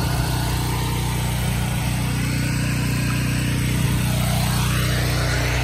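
The engine of a 4 GPM pressure washer running steadily at an even pitch.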